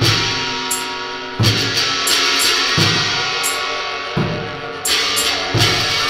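Noise-rock music: a drum kit with heavy bass-drum hits about every second and a half and crashing cymbals over sustained chords.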